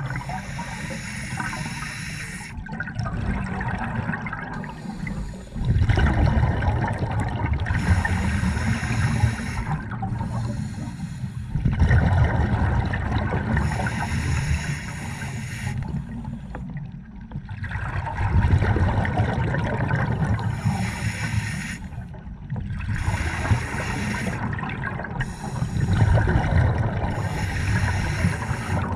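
Scuba breathing heard underwater: hissing inhalations through a regulator alternating with rumbling bursts of exhaled bubbles, a breath every five or six seconds.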